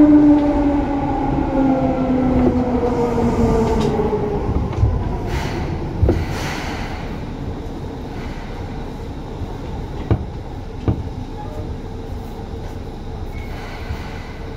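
Seibu 2000 series electric train's traction motors whining in several tones that glide down in pitch as the train slows. The whine then gives way to a quieter rolling rumble, with a few sharp knocks from the running gear.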